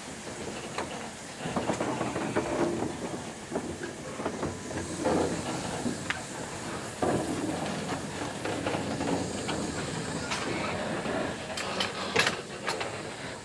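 BR Standard Class 4MT 4-6-0 steam locomotive standing at a platform, steam hissing steadily, with scattered sharp clicks and a cluster of them near the end.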